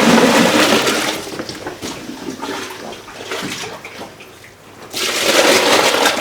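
Liquid pouring and splashing, loudest in the first second, dying down, then picking up again about five seconds in.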